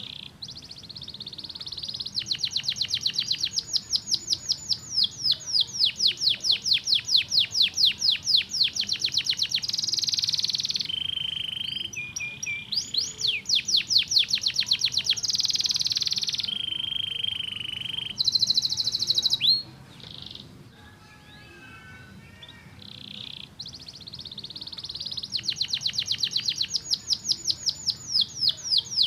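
Domestic canary singing: long rolling trills of fast, rapidly repeated high notes, broken by a few short held tones, with a quieter pause about two-thirds of the way through before the trilling starts again.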